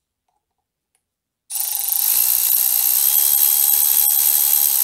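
Milwaukee Fuel cordless electric ratchet running for about three seconds, starting about a second and a half in, as it backs a bolt out of a BMW N42 exhaust VANOS unit. It runs as a steady motor whine and stops abruptly.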